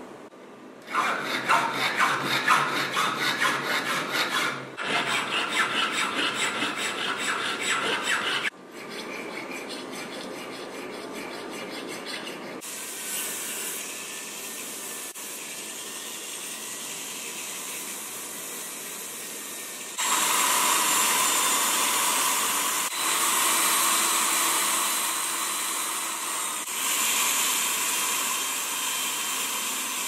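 Jewellery bench work on cast 9k gold parts, in several short cuts. First a run of rapid, even back-and-forth hand-tool strokes on the metal. Then a flex-shaft rotary tool whines steadily with a cutting disc, and in the last third it grinds more loudly as a burr works the gold.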